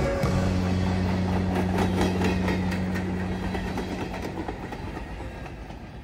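Freight train of hopper cars rolling past, steel wheels clacking over the rail joints with a steady low hum underneath, the sound fading as the last cars move away.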